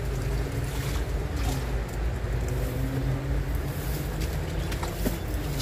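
Steady low outdoor rumble with a faint continuous hum and a few light ticks.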